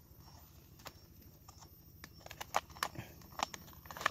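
Faint scattered clicks and crackles, more frequent in the second half, from hands handling a thin plastic cup among dry leaves.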